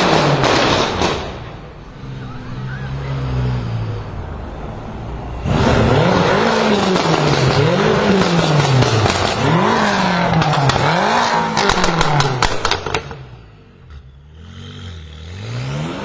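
BMW M5 F10's twin-turbo V8 with catless downpipes being revved: the pitch rises and falls over and over, about once a second, with sharp exhaust crackles and pops in the latter half. It eases off briefly, then climbs again near the end.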